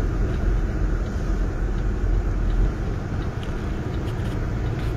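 Steady road rumble and engine noise inside a moving vehicle's cabin, deepest at the low end, easing slightly a little past halfway.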